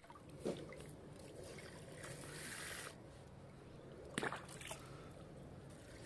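Water trickling and sloshing faintly as a small metal cup is dipped into a pool and poured out into an aluminium pot. Two sharp clicks cut through, about half a second in and again about four seconds in.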